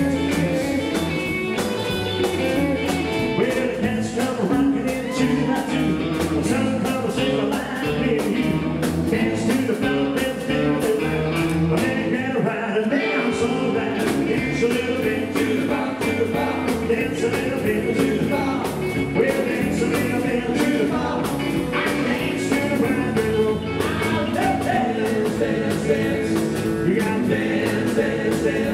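Live rock 'n' roll band playing: guitar and drums driving a steady beat while a man sings.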